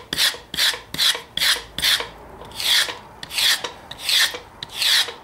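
The sharp metal pins of an onion-holding comb rasp along a boiled yucca leaf in repeated strokes, stripping off the flesh and separating the fibres. The strokes come quickly, about three a second, then slow to longer strokes spaced well apart after about two seconds.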